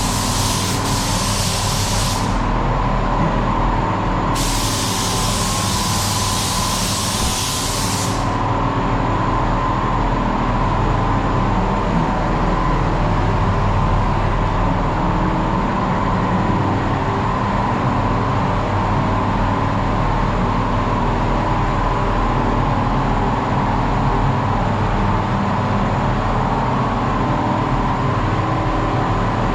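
A paint spray gun hisses until about two seconds in, and again from about four to eight seconds, over the steady hum of a spray booth's fans. The hum runs on alone once the gun stops.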